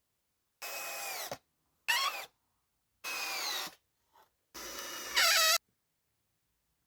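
Small power tool, such as a drill, running in four short bursts of under a second each, its whine falling and rising in pitch within each burst. The last burst is the loudest.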